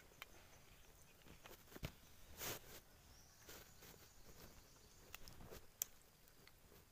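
Near silence, broken by a few faint, sharp clicks and soft rustles of a fish-shooting gun and clothing being handled at the water's edge.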